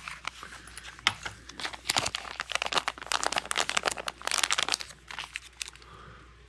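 Plastic bag crinkling as hands fumble to open it and get the knife out: dense, irregular crackles that thin out over the last second or so.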